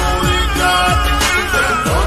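Slowed and reverbed Haryanvi pop song playing, with a beat of falling-pitch bass kicks about two a second under sustained melody.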